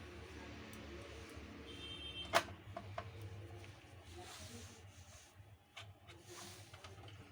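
A low steady hum with a few scattered clicks and knocks; one sharp click about two and a half seconds in is the loudest.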